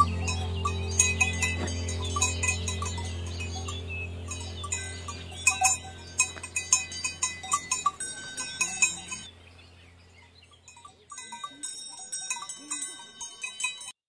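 Cowbells clanking irregularly as cows walk and graze, sharp metallic strikes with a ringing tone. Background music underneath fades out about two-thirds of the way through, leaving the bells alone.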